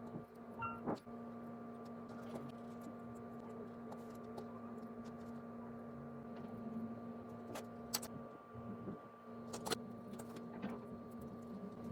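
A steady electrical hum with a low tone and fainter higher tones, with a few light clicks and taps scattered through it.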